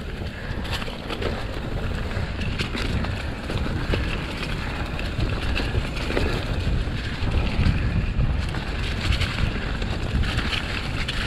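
Wind buffeting the microphone on a bike descending a leafy, loose trail, with tyres rolling through leaves and frequent short rattles and knocks from the bike over the ground.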